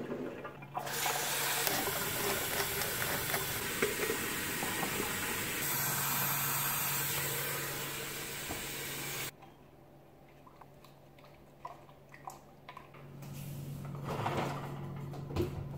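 Water running hard from a kitchen faucet into a stainless steel sink, starting about a second in and shut off abruptly after about eight seconds. Light clicks and knocks of handling follow.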